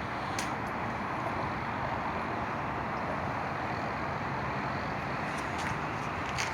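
Steady outdoor background noise with a few light clicks, one about half a second in and a cluster near the end.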